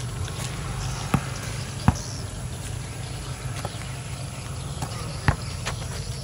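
Basketball bouncing on an asphalt court: a few sharp separate thuds, two about a second in, another past five seconds, over a steady low background rumble.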